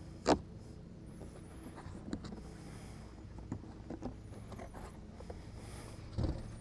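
Folding knife slicing packing tape and cardboard on a shipping box, scattered scraping and scratching with a sharp click about a third of a second in. A dull thump near the end as the box flaps are opened.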